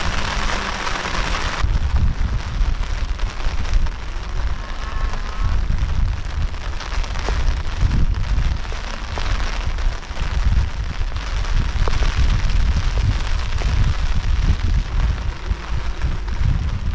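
Wind buffeting the microphone in a heavy low rumble, with rain hiss that stops suddenly nearly two seconds in.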